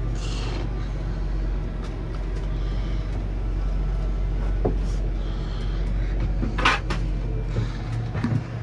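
A steady low mechanical hum inside the Snobear's cabin, with scattered light knocks and clatter of gear being handled and a short rustle about two-thirds of the way through.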